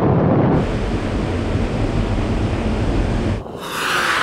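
Wind rush and road noise of cars running at high speed under full acceleration. The sound changes abruptly twice, about half a second in and again near the end, where the low rumble drops away and a brighter hissing rush takes over.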